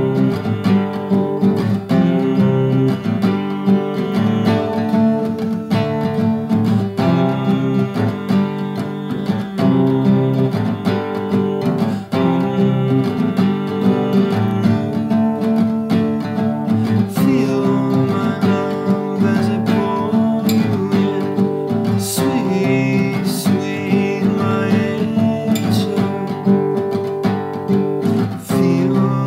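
Acoustic guitar strumming, playing a folk-pop song.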